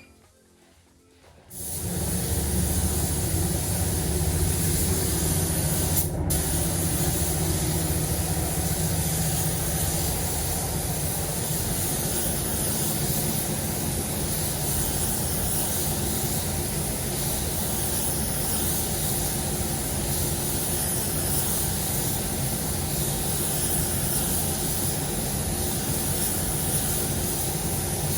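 Spray painting with compressed air: a steady, loud hiss with a motor hum underneath, starting abruptly about a second and a half in, with a single click about six seconds in.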